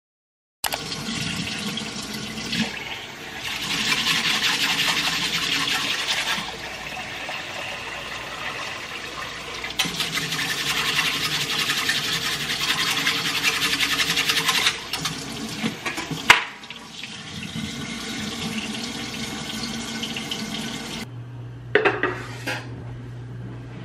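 Kitchen tap running into a stainless steel saucepan while rice is swished and stirred in it with a metal whisk to rinse it; the water swells louder twice. Near the end the pot clinks down on a gas stove, over a steady low hum.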